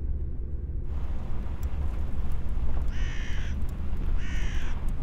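Two harsh crow caws, each about half a second long, about three and four seconds in, over a steady low rumble. In the first second, the muffled hum of a car cabin cuts off into open-air ambience.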